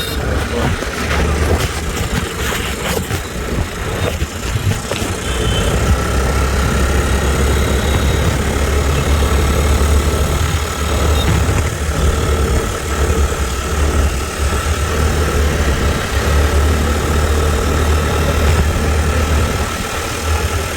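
Mahindra Rodeo 125 scooter engine idling steadily, with a thin steady whine over the low running note that is strongest from about six seconds in. This is the engine the owner describes as making a weird, unpleasant noise, and which a mechanic judged to be in poor condition.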